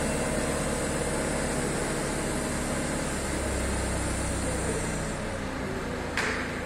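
Mobile crane's diesel engine running steadily, with a brief hiss near the end.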